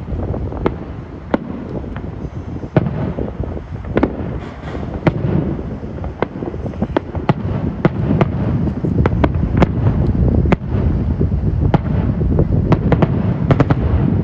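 Aerial fireworks display: a string of sharp bangs from shells bursting, coming faster and thicker in the second half, over a steady low rumble.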